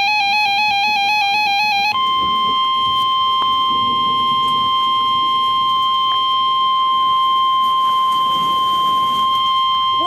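Weather-alert radio sounding an emergency alert: a warbling electronic tone that switches rapidly in pitch, then about two seconds in a single steady, loud 1050 Hz warning alarm tone that holds without change.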